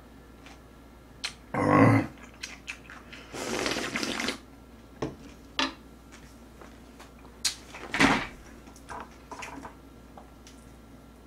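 Slurping ox-bone soup (gomtang) straight from the rim of a metal pan. There is a loud sip near two seconds in, then a longer hissing slurp of about a second, followed by scattered wet mouth smacks and clicks of chewing.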